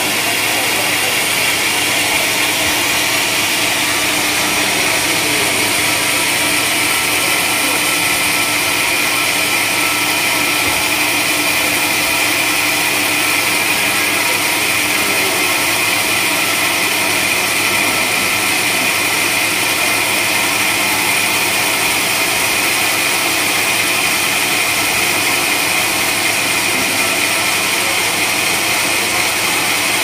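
Band sawmill running steadily, its blade cutting lengthwise through a wadang (Pterospermum javanicum) log.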